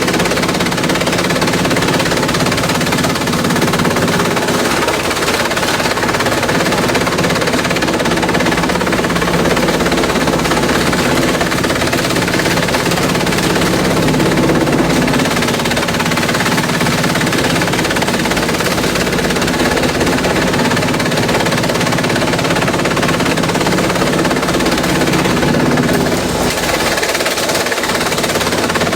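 Industrial shredder running loud and steady while it shreds bamboo: a continuous machine drone under dense, rapid cracking and clattering as the stalks are chopped.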